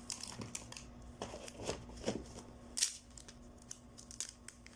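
Plastic wrapping crinkling with scattered small clicks as a new phone is unwrapped and handled.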